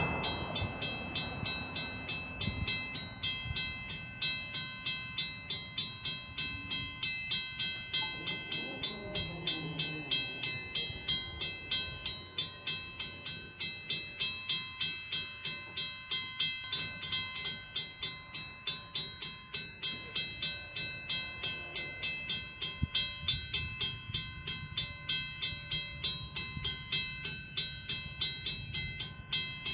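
Railway level-crossing warning bell ringing in rapid, even strikes, signalling that a train is approaching while the gates are down. A road vehicle crossing the tracks fades away in the first second or two.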